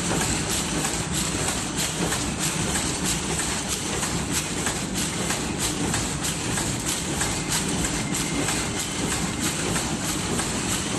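E-cigarette packaging machine running: a steady mechanical clatter dotted with many small, rapid clicks.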